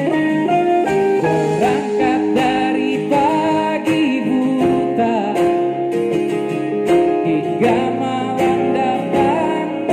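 Live band playing a song: electric and acoustic guitars with a man singing lead.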